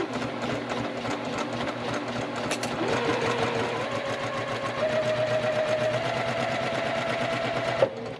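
Electric sewing machine stitching a quilt block seam in one long continuous run, its rapid needle strokes under a steady motor whine. The whine steps up in pitch about halfway through as the machine speeds up, and the machine stops suddenly just before the end.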